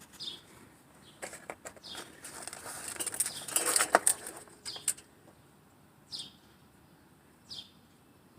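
A small bird's short chirps, each falling in pitch, heard now and then. From about one to five seconds in there are several clicks and knocks and a stretch of rustling.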